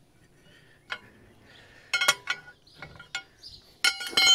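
Metal clicks and clinks of a wrench and socket on the lug nuts of a tractor wheel spacer as the nuts are loosened, a few separate clicks, then a cluster near the end that finishes in a ringing metallic clank.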